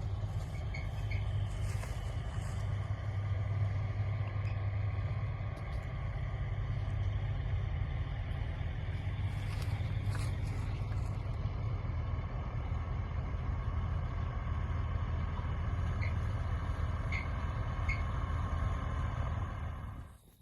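Heavy diesel harvest machinery running steadily: a low engine drone with faint steady whining tones above it, cutting off abruptly near the end.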